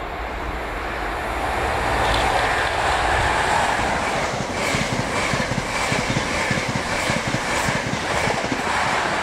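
A Great Western Railway High Speed Train passing at speed. Its noise builds over the first two seconds, then a fast run of wheel clicks over the rail joints comes in about four seconds in, with a faint steady high whine.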